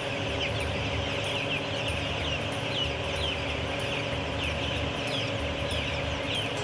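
A flock of young broiler chicks peeping without pause: many short, high, falling cheeps that overlap one another, over a steady low hum.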